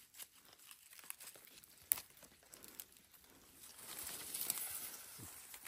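Leaves and stems rustling and crackling as a hand works through a plant and picks its young shoots, with a sharp snap about two seconds in and louder rustling in the second half.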